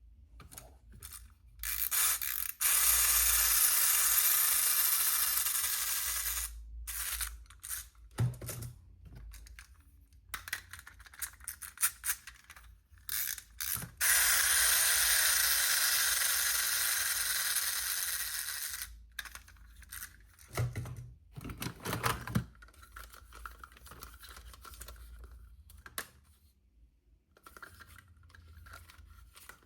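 Toy unboxing handling sounds: scattered clicks and two long stretches of rasping, ratchet-like noise, each several seconds long and slowly fading, with a few soft thumps.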